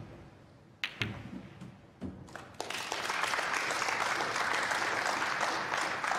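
Sharp clicks of snooker balls striking each other and a couple of knocks as a red is potted, then audience applause swelling from about two and a half seconds in and dying away near the end.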